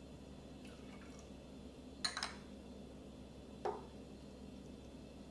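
Small glass prep bowls clinking lightly against a glass measuring jug as marinade liquids are poured in: a short clink about two seconds in and a duller knock a little before four seconds.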